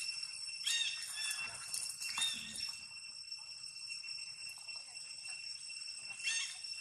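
Long-tailed macaques giving short high-pitched squeals: a cluster in the first three seconds and another near the end. Under them runs a steady high-pitched drone of insects.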